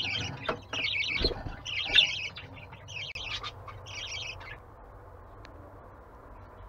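Budgerigars calling in five bursts of rapid, raspy chirping about a second apart, which stop a little past halfway.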